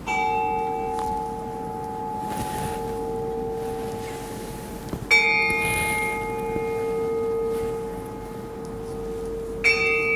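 Altar bell struck three times, about five seconds apart, each stroke ringing on and fading slowly: the bell rung at the consecration of the bread during the Eucharist.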